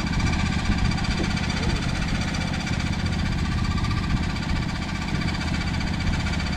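Tractor engine running steadily at low speed, an even, unbroken drone.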